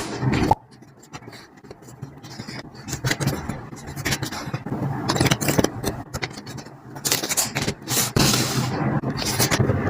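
Irregular scraping and rustling of objects being handled, with many short clicks and taps; louder stretches near the end.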